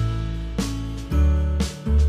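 Instrumental background music with a strong bass line.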